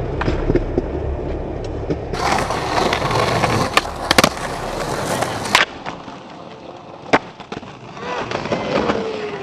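Skateboard wheels rolling on rough pavement, broken by several sharp clacks of the board popping and landing.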